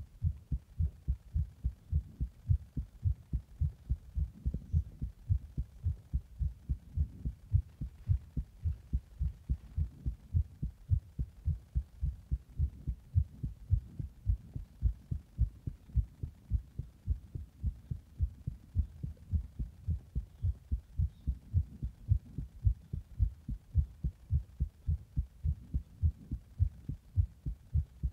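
A human heart beating: steady, regular low thuds heard close up through a chest recording. The heart is recorded after drinking a Monster energy drink in the bath and then pressing on the chest.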